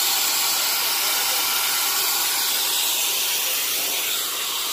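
A steady, even hiss, strongest in the high range, running without a break.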